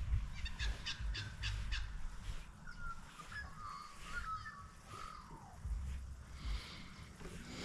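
A crow calling in drawn-out, wavering caws from about two and a half seconds in, the last call sliding down in pitch. A few sharp clicks come in the first two seconds.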